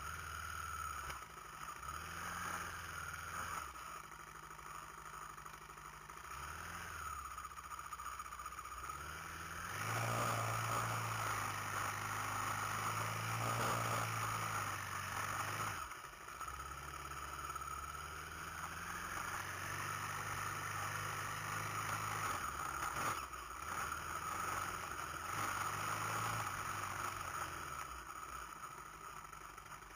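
Honda TRX700XX ATV's single-cylinder four-stroke engine running at low speed on a rocky trail crawl. Its pitch rises and falls with the throttle, loudest from about ten to sixteen seconds in, then eases off and picks up again.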